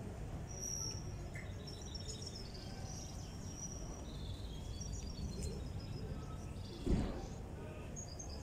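Outdoor street ambience: a steady low rumble with small birds chirping in short high calls, and a single sudden thump about seven seconds in.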